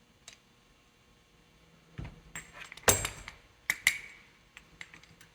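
Metal tools and pump parts handled on a workbench: a handful of clinks and knocks, the loudest about three seconds in, with a short ring after a pair of knocks near four seconds.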